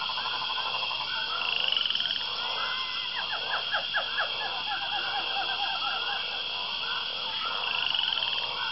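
A chorus of frogs calling: many overlapping croaks over a steady high-pitched drone.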